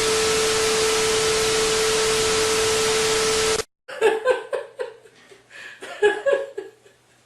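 Loud steady static hiss with one steady tone running through it, cutting off suddenly about three and a half seconds in. Then a person laughs in short bursts for about three seconds.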